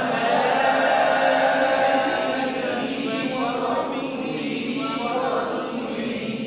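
Quranic Arabic recited in a slow chant, the voice holding long drawn-out vowels for seconds at a time and shifting pitch a couple of times, as in tajwid practice.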